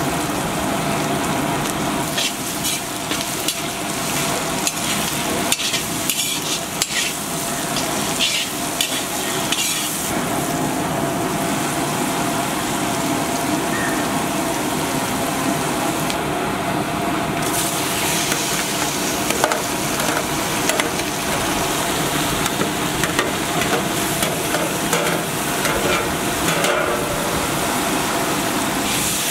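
Chopped onions, green chillies and garlic sizzling steadily in hot oil in a large iron kadai, with scattered clicks and scrapes of stirring.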